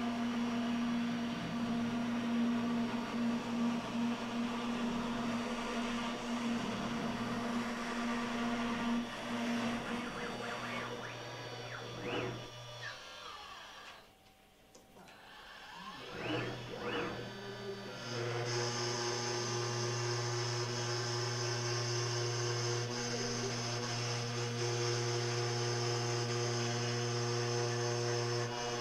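TorqueCNC 9060 router spindle running steadily at high speed while the end mill cuts foam. About halfway through it winds down and falls nearly quiet, then spins back up with a rising whine. It settles into a new steady running note with a high whine on top for another cut.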